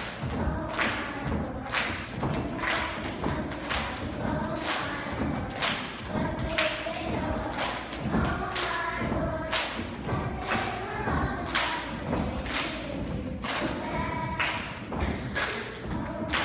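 Children's choir singing, with a steady beat of thumps about once a second under the voices.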